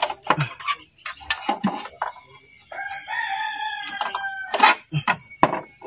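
A rooster crows once, a long drawn-out call in the middle, mixed with sharp clicks and knocks of hand tools against metal parts in an engine bay.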